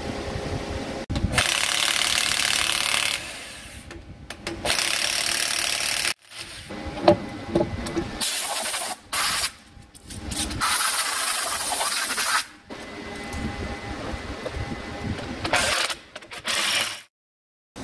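Milwaukee corded impact wrench run in short bursts of one to two seconds, about five times, driving the bolts of a vertical lathe's chuck jaw. A steady machine hum is heard between bursts.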